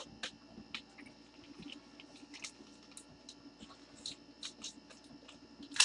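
Scattered light clicks and soft rustles from handling, irregular and several a second, with one louder rustle at the very end.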